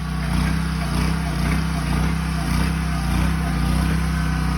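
Chain trencher running steadily under power, its engine holding an even speed while the digging chain cuts a trench in the soil.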